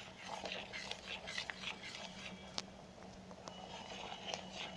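A spoon stirring rice and milk in an electric kettle: faint scraping and small clicks against the pot, with one sharp tap about two and a half seconds in, over a low steady hum.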